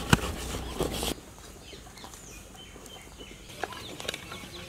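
Chickens clucking and chirping in the background. At the start there is a sharp click and about a second of louder noise.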